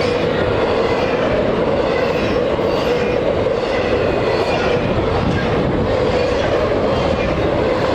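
Freight cars of a long intermodal train rolling past on steel rails: a steady, loud rumble of wheels on track with clickety-clack.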